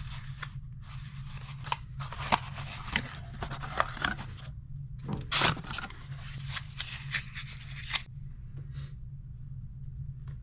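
RC lowrider's hydraulic-pump servo powered up and humming steadily under load, with irregular scraping and clicking bursts as it works the suspension.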